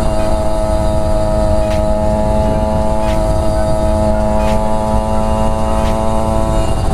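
Two-stroke Kawasaki Ninja 150 single-cylinder engine running at steady revs while riding, with wind rush on the microphone. Faint light ticks come about every second and a half.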